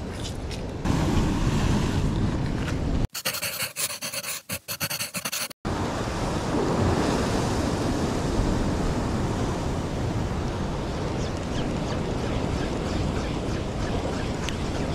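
Ocean waves surging and breaking against a sea-rock ledge in a strong swell, with wind on the microphone. For a couple of seconds a little after the start the sound turns thin and choppy, cutting in and out.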